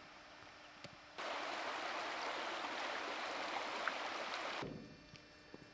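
Small stony stream running, a steady rush of water that starts abruptly about a second in and stops abruptly after about three and a half seconds.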